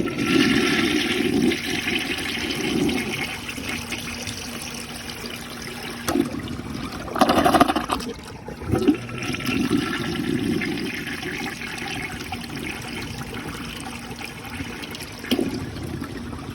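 1965 Rheem Claymore toilet flushing, with water rushing through the bowl. A louder burst comes about seven seconds in, and the water runs on steadily afterwards.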